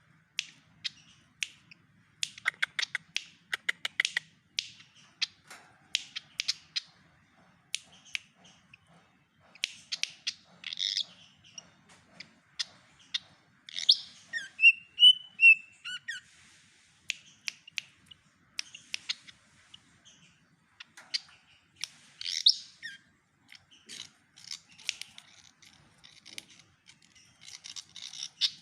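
A sikatan kipas songbird singing a rapid, scattered string of sharp clicks and chips, with a brief run of loud whistled notes about halfway through, mimicking the song of a white-rumped shama (murai batu).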